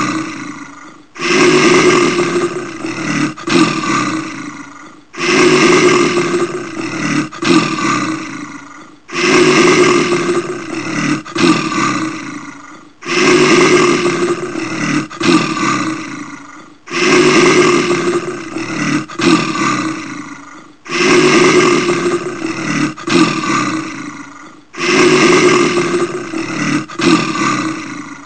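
Brown bear roar played on a loop: the same loud roar starts suddenly and fades away over about three seconds, and repeats about every four seconds, seven times over.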